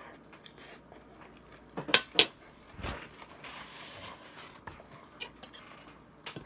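Table sounds while eating: two sharp clinks of cutlery or dishes about two seconds in, then a soft rustle of a paper napkin and a few small clicks on the table.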